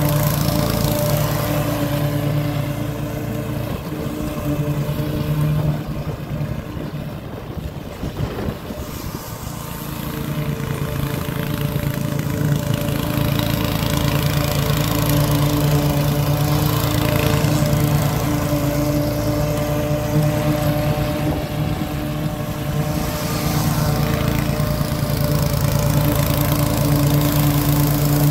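Engine of a Toro TimeMaster 30-inch walk-behind mower running steadily at cutting speed as it mows grass. The sound drops in level for a few seconds about a quarter of the way through, then comes back up.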